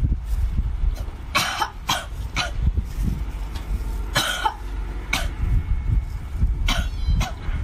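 About seven short, breathy mouth sounds from a person eating cooked octopus, spread through a few seconds, over a steady low wind rumble on the microphone.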